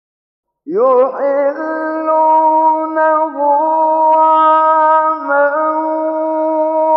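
After a moment of silence, a male Quran reciter's voice comes in and holds one long melodic chanted line. It is drawn out on sustained notes that step slightly in pitch, in the ornamented style of Quranic tajwid recitation.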